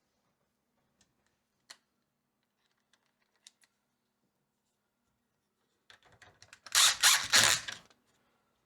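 A few faint clicks, then near the end a loud burst of about two seconds with three or four strong surges: a cordless drill driving a latch screw into the door edge.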